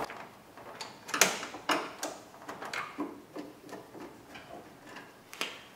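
Phillips screwdriver backing out the screws that hold the grille: a string of irregular light clicks and ticks, several a second.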